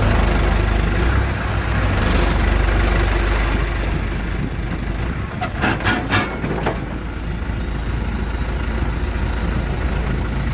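2005 John Deere 410G backhoe loader's diesel engine running steadily, with a few short sharp sounds a little past halfway.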